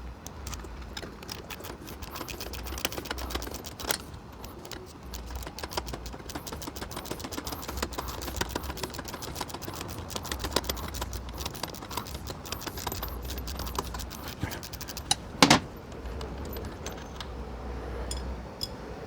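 Hand wrench working a nut loose on a motorcycle engine mount: a steady run of small metallic clicks and clinks. There is a louder knock about four seconds in and another about fifteen seconds in.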